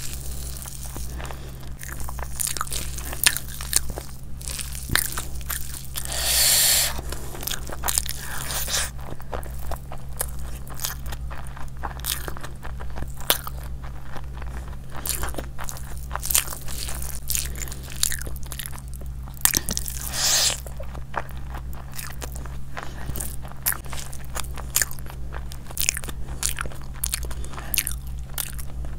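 Close-up eating sounds: irregular chewing and crunchy bites, with two louder, longer crunches, about a quarter of the way in and again past two-thirds, over a steady low electrical hum.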